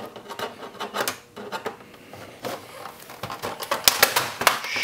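Plastic housing of a Cisco desk phone being pried apart with a screwdriver: a run of plastic clicks, snaps and taps, coming faster near the end.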